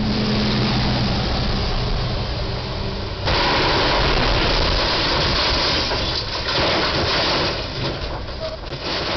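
A vehicle engine hums steadily. About three seconds in, a sudden loud scraping and tearing of metal starts as a refrigerated box truck's roof strikes the steel crash beam of a low railroad bridge and is peeled open. It lasts about four seconds, then tapers off with a few sharp ticks of falling debris.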